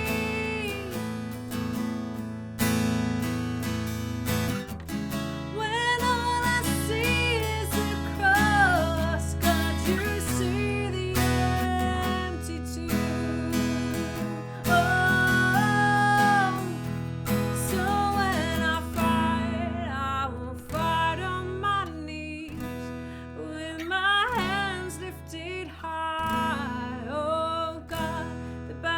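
Acoustic guitar strummed while a singer carries a slow melody, with long held notes.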